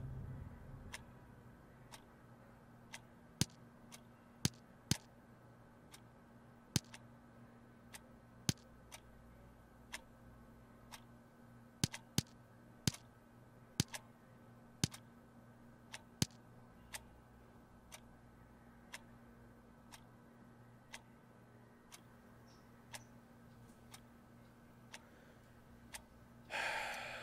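Wall clock ticking about once a second over a steady low hum, with a few louder clicks falling between the ticks. A brief breathy sound comes near the end.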